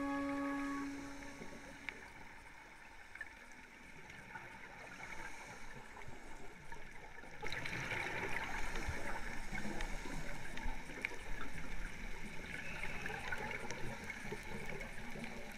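Scuba regulator exhaust bubbles heard underwater: a fizzing, gurgling crackle of divers' exhaled air. The bubbling grows much louder about halfway in and keeps swelling with each breath.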